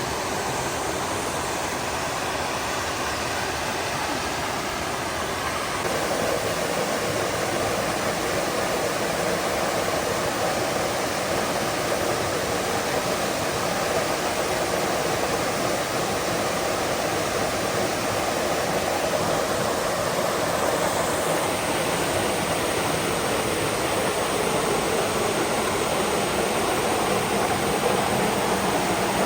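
Water rushing steadily down a large lake dam's spillway, growing a little louder about six seconds in.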